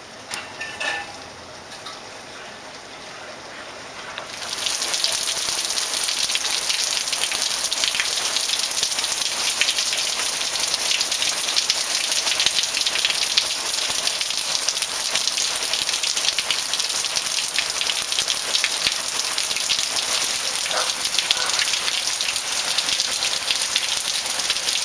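Heavy rain falling in a dense patter of drops, jumping suddenly much louder about four seconds in and staying steady.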